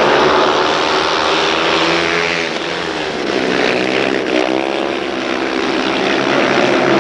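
Several speedway motorcycles racing, their single-cylinder engines running hard. The pitch rises and falls as the bikes come through the bend, most clearly around the middle.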